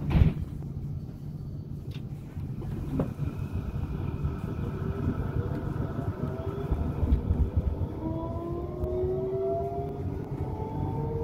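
Tram pulling away from a stop: a steady low rumble with the electric traction motor's whine rising slowly in pitch as it gathers speed. A loud thump comes right at the start.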